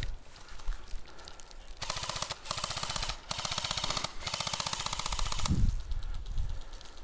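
Airsoft rifle firing on full auto in four quick bursts, a rapid even rattle of shots.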